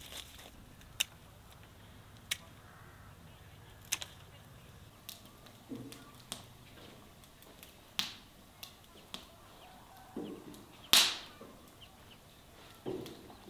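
Sparse clicks and knocks of clay pots being set down on and slid across wooden shelving, with one louder knock near the end.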